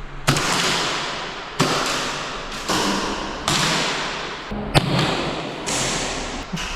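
Airsoft shots and hits: about seven sharp cracks, unevenly spaced roughly a second apart, each trailing off in a hissing fade.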